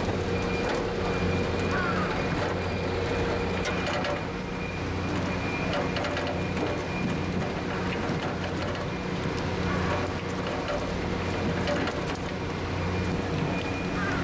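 Steady machinery hum from fish-unloading equipment, over splashing water and scattered knocks and slaps as whole skipjack tuna slide down a wet metal chute.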